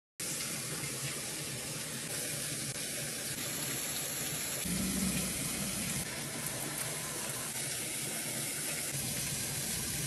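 Steady rush of a small waterfall spilling into a pond.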